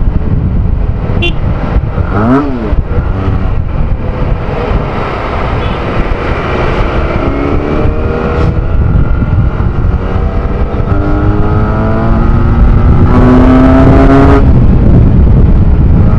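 Benelli Tornado 302 parallel-twin motorcycle engine accelerating hard, its pitch climbing through the revs and loudest a little past halfway before the throttle eases near the end. Heavy wind rumble on the microphone throughout.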